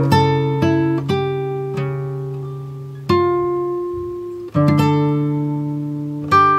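Background music: a slow plucked-string tune, each note ringing out and fading, with a short gap about four and a half seconds in before a new chord.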